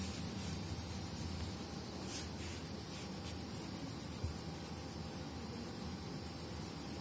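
Faint scratching of a colored pencil shading back and forth on a workbook page, over a steady background hiss.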